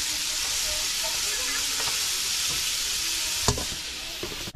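Steaks sizzling steadily in a hot frying pan as they are turned with tongs, with one sharp knock about three and a half seconds in.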